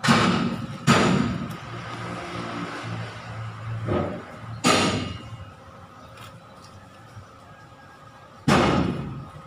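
Four heavy percussive hits a few seconds apart, each sharp at the start and ringing out for about a second.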